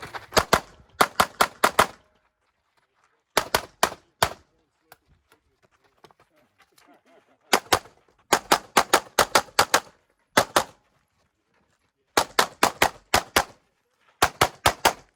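Rapid pistol fire from a CZ Shadow 2 shooting a USPSA stage: quick strings of shots, many in fast pairs, broken by short pauses between five groups.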